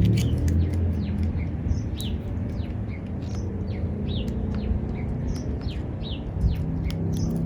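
Small birds chirping over and over, short quick downward chirps about twice a second, over a steady low hum.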